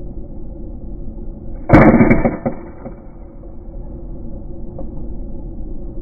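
A .177 FX Dreamline Lite PCP air rifle fires once, about two seconds in: a sharp crack with a short decaying report. A steady low hum runs underneath.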